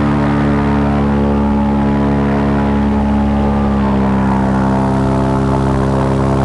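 Airboat engine and its air propeller running steadily at speed: a loud, even drone.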